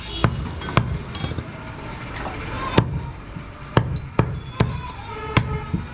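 Heavy butcher's cleaver chopping goat meat on a thick round wooden chopping block: about seven sharp chops at irregular intervals, coming closer together in the second half.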